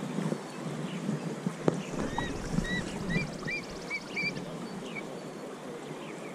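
Steady rush of shallow river water around a wading angler, with wind on the microphone. A sharp click comes about a second and a half in, and a small bird chirps repeatedly, in short rising-and-falling notes, from about two seconds in until past four seconds.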